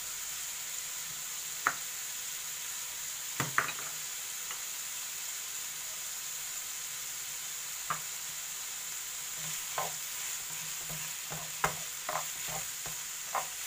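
Minced meat and onions sizzling steadily in a frying pan, with a handful of sharp knocks and clicks against the pan as grated carrot is stirred in.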